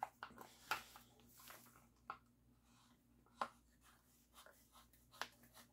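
Faint scattered clicks and taps of hands handling a Pistelle X68 air pistol, a few sharp ticks spread about a second or so apart in otherwise near silence.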